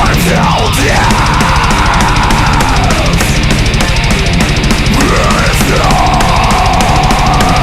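Death metal song: heavy distorted guitars and fast, rapid-fire drumming, with a high pitched line that slides and wavers over the top.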